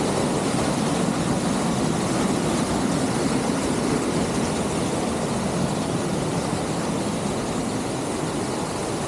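Waterfall, water rushing steadily as a dense, even noise.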